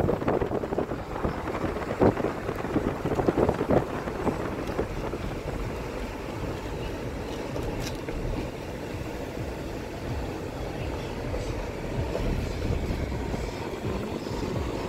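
Steady low rumble of a car driving slowly, heard from inside the cabin, with a few brief louder knocks in the first few seconds.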